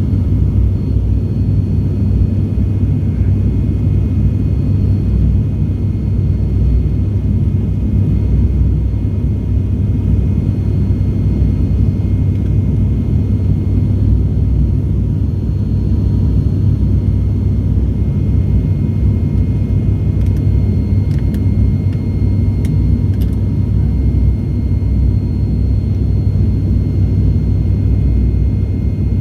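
Cabin noise of an ATR 72-600 turboprop: a steady, loud, deep rumble from the engines and propellers with a few faint high steady tones over it, and a few faint clicks about two-thirds of the way through.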